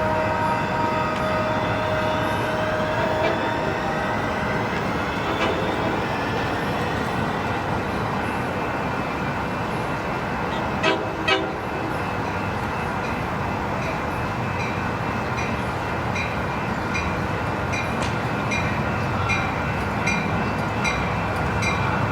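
Amtrak Pacific Surfliner train's horn sounding a chord that fades out in the first few seconds, over the steady rumble of the train running by. Two sharp clacks come about halfway, and from about two-thirds through a regular ringing repeats a little under twice a second.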